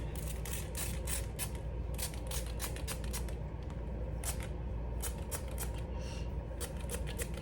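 Hand-pumped spray bottle squirting water onto the wig's hair in a quick, irregular series of short hissing sprays, several a second, over a steady low hum.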